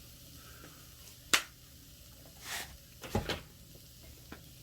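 Kitchen handling sounds: a sharp click a little over a second in, a short swish past the middle, and a duller knock soon after, as of containers and cookware being picked up and set down on the counter.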